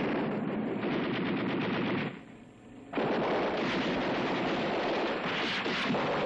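Rapid machine-gun fire on an old film soundtrack, a continuous clatter that breaks off for under a second about two seconds in, then resumes.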